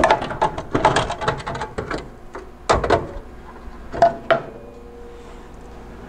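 A cut-loose steel strut tower section being worked free of a car body: a quick run of sheet-metal rattles and scrapes over the first two seconds, a thump near the three-second mark, and two sharp knocks a little after four seconds.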